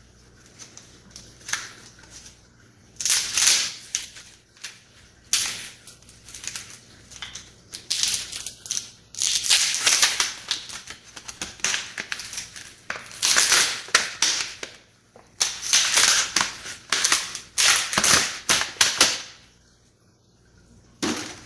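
Thin plastic fruit-container mold crackling and crumpling in repeated bursts as it is flexed and peeled off a cured resin casting, with scattered clicks in between.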